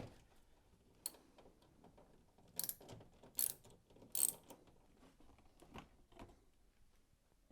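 7 mm socket wrench undoing the screws that hold a tumble dryer's top panel: a scattering of quiet ratchet-like clicks, with a few louder rattling scrapes about halfway through.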